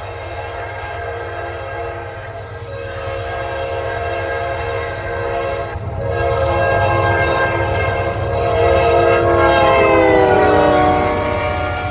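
Locomotive air horn sounding a loud, sustained chord of several notes that grows louder as the train approaches, with a brief break about six seconds in; around ten seconds in the whole chord slides down in pitch as the locomotive passes. The train's low rumble runs underneath.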